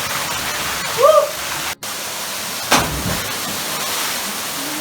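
Steady rush of falling water at a waterfall pool, with a short rising-and-falling shout about a second in, a brief dropout of all sound, and one sudden thump just under three seconds in.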